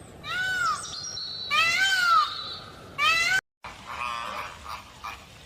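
A bird calling: three loud, ringing calls that rise and fall in pitch, then a short break and fainter, different calls.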